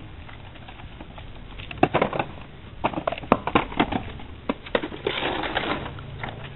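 Camera handling noise: a run of irregular sharp clicks and knocks, then a brief rustling scrape near the end.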